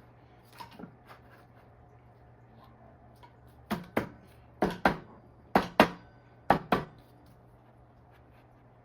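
Sharp knocks on the e-bike hub motor's parts as they are seated during reassembly: eight hard taps in four pairs, each pair a fraction of a second apart and the pairs about a second apart, over a faint steady hum.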